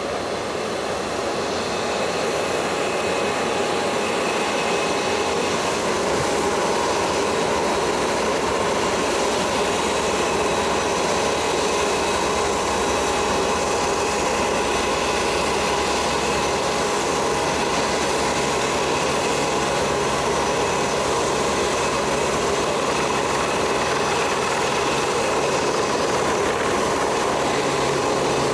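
Turbine aircraft running steadily: an even rushing noise with a thin high whine over it, level throughout.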